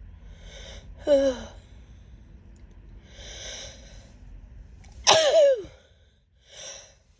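A woman sneezing in a fit. A gasping in-breath comes before each sneeze: one sneeze about a second in, a second, longer sneeze about five seconds in, and another sharp in-breath near the end.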